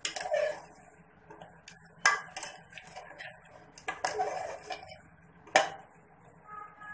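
Metal spoon stirring rose petals and sugar in an aluminium saucepan, scraping and clinking against the pot, with sharp clinks about two, four and five and a half seconds in.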